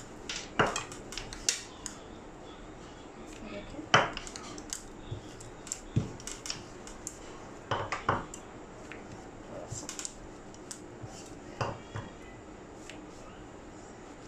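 Wooden rolling pin rolling bread dough flat on a granite countertop, with scattered sharp knocks and clicks of the pin against the stone.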